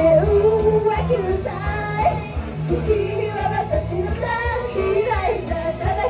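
Idol pop song performed live: a young female voice singing into a microphone over a backing track with a steady beat.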